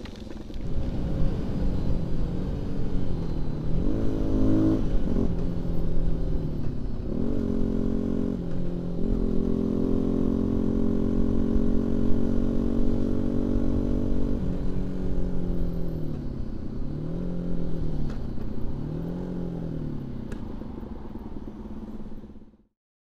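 Husqvarna 125 cc four-stroke supermoto engine being ridden, revving up and dropping back through the gears, with wind rushing over the helmet microphone. Late on the revs rise and fall three times in quick succession, and the sound cuts off suddenly near the end.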